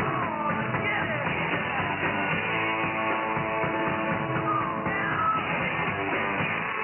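Rock music received over shortwave radio in upper sideband, sounding thin and muffled with the treble cut off.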